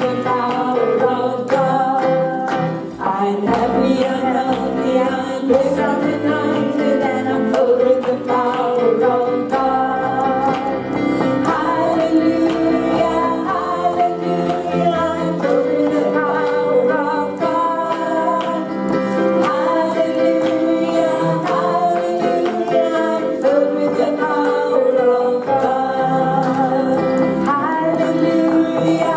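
Women's voices singing a gospel worship song with instrumental accompaniment, in long held and gliding sung notes.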